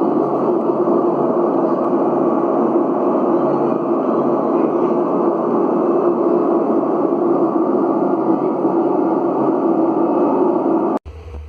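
Band-limited test noise played loud through a car sound system's mid-range speakers while the system is being aligned: a steady, even rush with no tune. It cuts off suddenly near the end, leaving a low bass-band hum.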